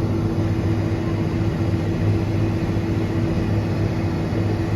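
Tractor engine running steadily under load with an even, unchanging drone.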